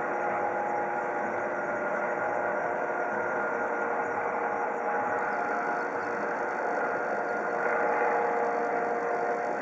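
Eurocopter EC155 B helicopter flying overhead: the steady sound of its rotors and turbines, with a few held whining tones over the beat. It swells slightly about eight seconds in.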